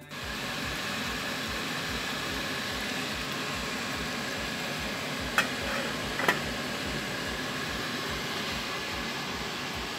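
A pan of sausage and vegetables in a coconut-milk sauce sizzling and bubbling steadily on the stove. Two short sharp clinks come about five and six seconds in.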